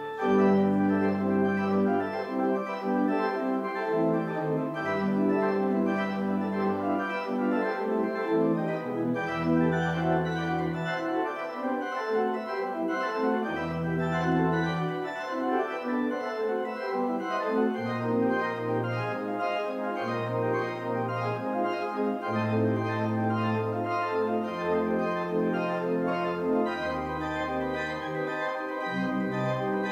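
Church pipe organ playing a postlude: sustained chords over a pedal bass line that moves to a new note every second or two.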